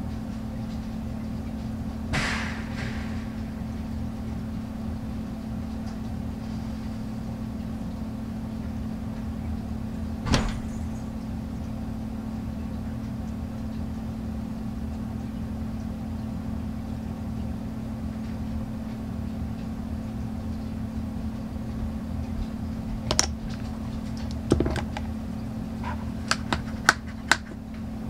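Steady low electrical or appliance hum, with a few scattered sharp clicks and small taps, most of them in a cluster near the end.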